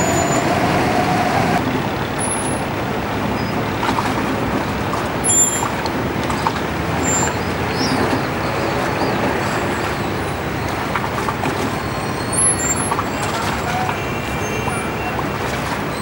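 Boat engine running steadily, a low rumble under an even wash of noise, with a few small knocks here and there.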